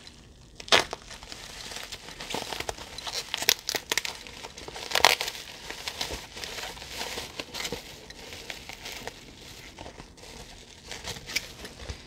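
Plastic bubble wrap crinkling and rustling as it is cut and pulled open by hand. Sharp crackles come about a second in and again around five seconds.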